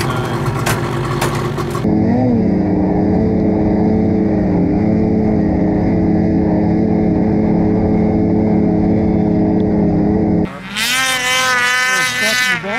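Ski-Doo Summit 850 snowmobile's two-stroke engine running at a steady speed along a snowy trail. It is framed by a burst of clatter at the start and a different, wavering sound near the end.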